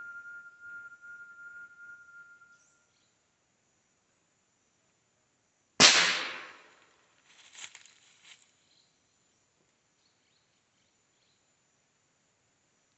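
A single shot from a Rossi R8 air rifle, a sharp crack that dies away within about a second, followed a couple of seconds later by a few fainter short knocks.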